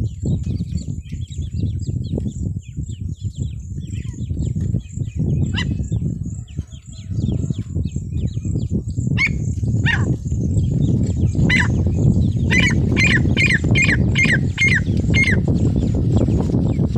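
Female francolin (teetar) calling: a few single call notes, then a quick run of about seven repeated notes a little past the middle. The calls sit over a steady low rumble, with faint chirping from smaller birds.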